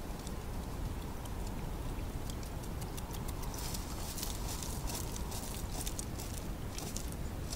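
Hedgehog crunching dry food at a feeding dish with small scattered clicks, then scratching itself with a hind foot about halfway through: a fast, dense rustling scratch against its spines.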